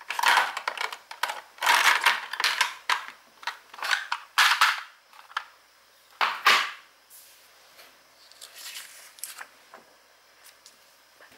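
Clicks, taps and scratchy scraping from stationery being handled on a desk: a quick, dense run for the first several seconds, then sparser and fainter ones.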